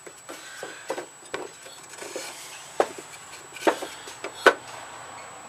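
A wooden block knocking and scraping against the steel deck and blade of a Snapper riding mower as it is wedged in front of the blade, with about half a dozen sharp knocks.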